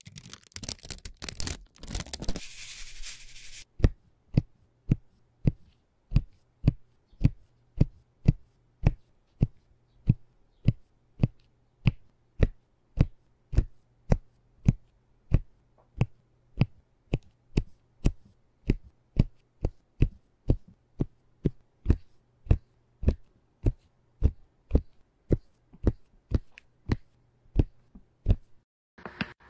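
Clear protective film crinkling as it is peeled back from a diamond-painting canvas. Then a diamond-painting pen pressing round resin drills onto the sticky canvas one by one, a sharp tap about twice a second.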